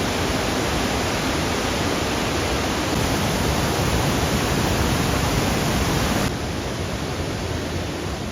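Waterfall roaring: a dense, steady rush of falling water, the falls running high with snowmelt. The level drops a step about six seconds in.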